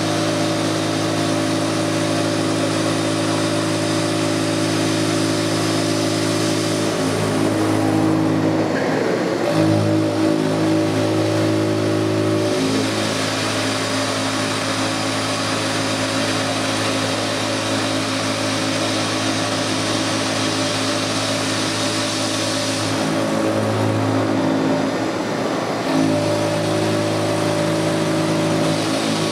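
TOS Kuřim FUT horizontal boring and milling machine running while machining: a steady mechanical hum made of several tones, with hiss above it. Twice, for a few seconds each time, the tones break up and shift before settling again.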